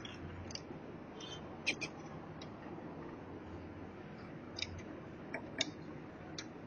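Scattered light clicks and ticks of plastic printer parts being handled and pried during disassembly of an HP LaserJet laser printer. Two of the clicks are sharper, one under two seconds in and one later on.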